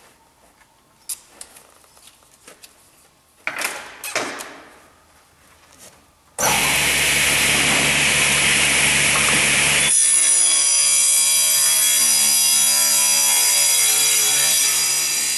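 A few quiet knocks and rubs, then about six seconds in a table saw cuts a birch board with a loud, even cutting noise. About three seconds later the cut ends and the blade runs free with a steady whine.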